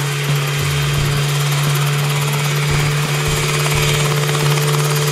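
Homemade single-seat helicopter hovering low, its engine and rotor running at a steady, unchanging pitch.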